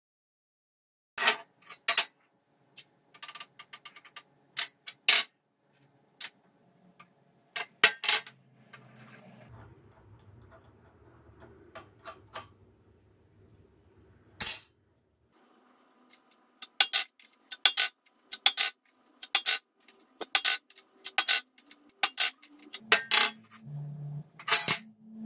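Sharp metallic clinks and taps of small steel parts being handled: a steel pin and a turned steel cone knocking against each other, a brake disc and a steel table. They come in irregular clusters, with a quick run of clinks in the last third.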